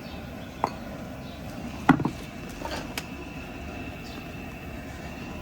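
A few clinks and knocks of dishes and utensils, the loudest a clatter about two seconds in, over a steady background hum.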